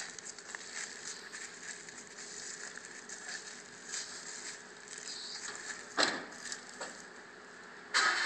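Faint rustling and crackling of footsteps on dry leaves and grass, with a sharper knock about six seconds in and a louder one about eight seconds in.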